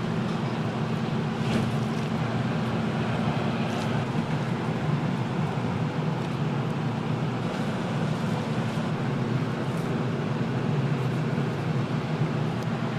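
Steady low rumble of kitchen equipment, with a few faint clicks and clatters over it.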